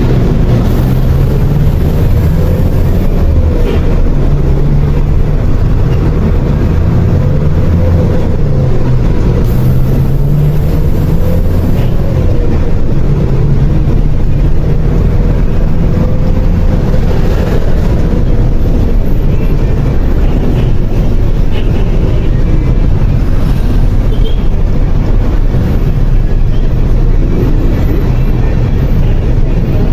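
Loud, steady city traffic noise, dominated by the low rumble of a heavy vehicle's engine whose pitch drifts up and down.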